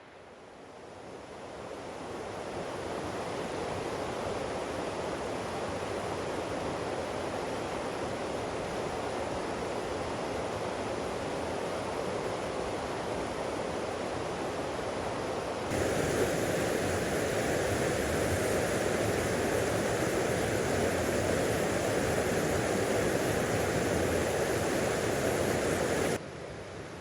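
A rushing river runs with a steady, even rush of water, fading in over the first few seconds. About two-thirds of the way through it jumps abruptly to a louder, brighter rush, then drops back suddenly just before the end.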